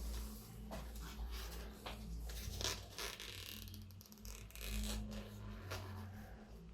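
Packaging being unwrapped by hand: plastic film rustling and crinkling, with scattered small clicks and knocks.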